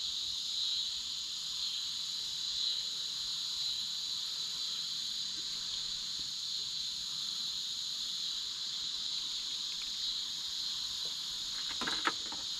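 Steady, high-pitched chorus of insects, with a couple of short clicks near the end.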